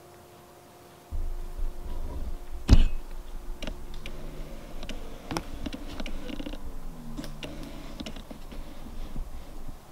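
Camera handling noise as the camera is picked up and reframed. A low rumble starts about a second in, then comes one sharp loud click, then scattered small clicks and a few short whirs from the camera's lens motor.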